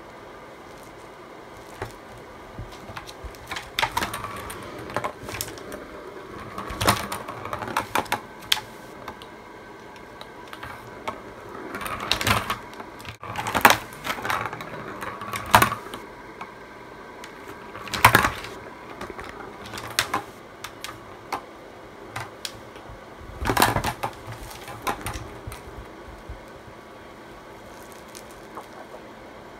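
Plastic balls clicking and clattering in a clear plastic circular track toy as cats bat at them with their paws, in irregular bursts of rattling.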